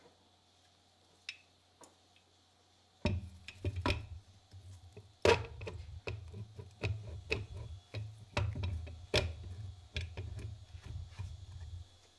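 Rusted metal submachine gun being handled and set down on a tabletop: a few faint ticks at first, then from about three seconds in a string of sharp clicks and knocks with dull thuds as the corroded parts move and touch the table.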